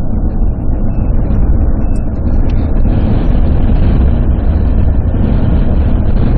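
Steady road and wind noise inside a moving car's cabin: a low rumble with a hiss above it that grows a little stronger about two and a half seconds in.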